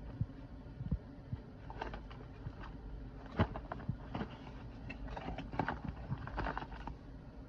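Scattered taps, clicks and rustles of a small product box and its packaging being handled and opened.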